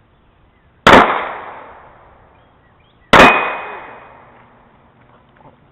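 Two handgun shots about two seconds apart, each a sharp crack with an echo that trails off over about a second.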